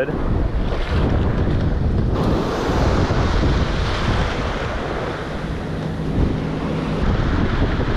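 Ocean surf washing in and out over the shallows, with wind buffeting the microphone in a steady low rumble. About two seconds in the wash turns to a louder hiss.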